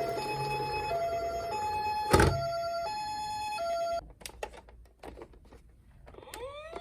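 Toy ambulance minicar's electronic two-tone siren sounding the hi-lo 'pee-poh' ambulance call, switching between its two notes about every 0.7 s, then cutting off about four seconds in. A sharp thunk about two seconds in is the loudest sound; a few light clicks follow the siren, and near the end a siren wail starts, rising in pitch.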